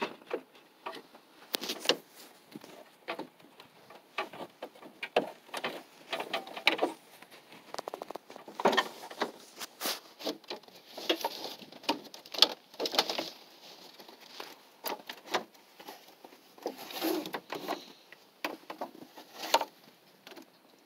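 Hands working plastic and metal parts at a minivan's radiator and A/C condenser: irregular clicks, knocks and rattles.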